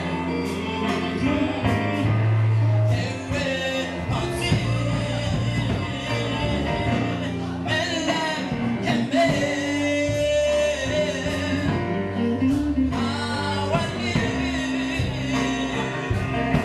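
A man singing into a handheld microphone over instrumental accompaniment, with long held and bending sung notes.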